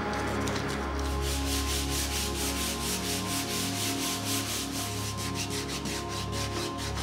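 Hand sanding a wooden furniture top with sandpaper on a yellow foam sanding block. Quick, even back-and-forth scratchy strokes start about a second in and run at several a second.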